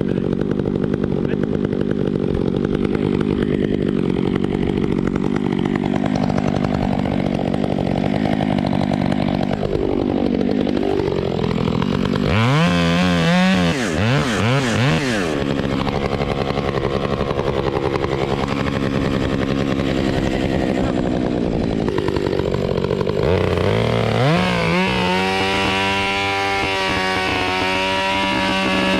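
Two-stroke chainsaw running throughout, its engine speed dipping and rising as it works. It revs sharply a few times about halfway through, then is held at high revs for the last five seconds or so.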